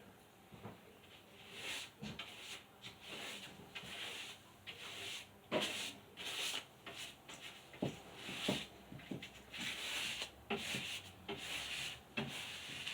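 Paint roller being worked over a wall in repeated back-and-forth strokes, each pass a rough rubbing swish.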